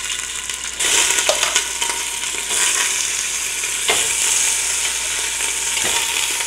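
Oxtail pieces sizzling as they sear in hot oil in a stainless steel stockpot. The sizzle swells about a second in as more pieces go into the pan.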